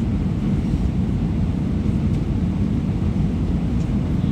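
Steady low rumble of airliner cabin noise, the engines and airflow heard from inside the passenger cabin.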